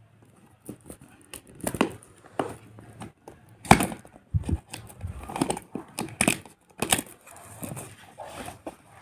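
Clear plastic wrap crinkling and tearing as it is pulled off a small cardboard earbuds box, with irregular crackles, scrapes and taps of the cardboard as the box is opened.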